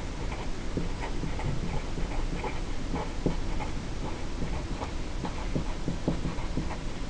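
Pen scratching across paper in short, irregular strokes as someone writes by hand, over a low steady hum.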